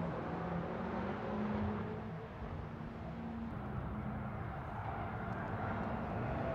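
BMW X6 M's twin-turbo V8 running at speed as the car pulls away, fading about two seconds in. Then car engines approach, growing louder near the end.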